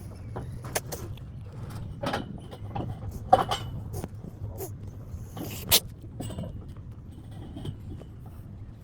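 A cat sneezing repeatedly, a string of short sharp sneezes and snorts, the loudest about three and a half and nearly six seconds in.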